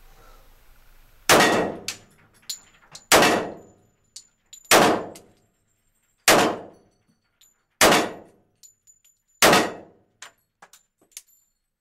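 Smith & Wesson E-series 1911 pistol fired six times at an even pace, about a shot every second and a half, each shot ringing in a small concrete range, followed by a few faint clicks. After the last round the slide fails to lock back on the empty factory magazine.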